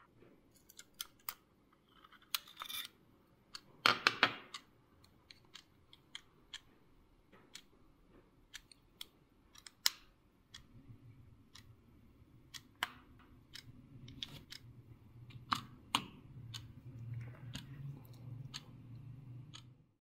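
Small plastic quartz alarm clock being handled, with its AAA battery fitted: a scatter of sharp little clicks and a louder clatter about four seconds in. From about halfway a faint low hum sits under the clicks.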